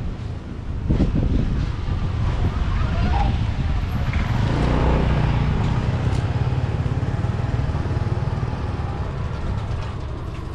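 Street traffic rumble, with a motor vehicle passing close and loudest about five seconds in.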